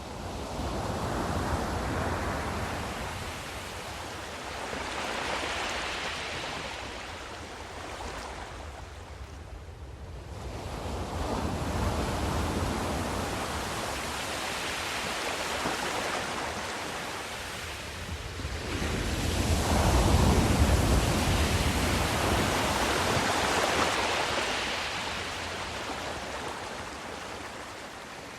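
Ocean waves breaking on a shore, three slow swells of surf that each build and wash away, the loudest about twenty seconds in.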